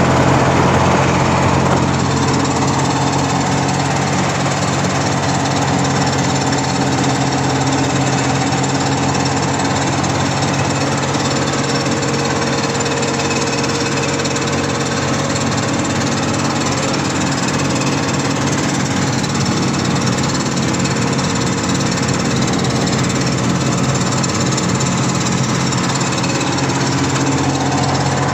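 Kirovets K-701 tractor's diesel engine running steadily at an even pitch with a fast rattling beat, a little louder in the first couple of seconds.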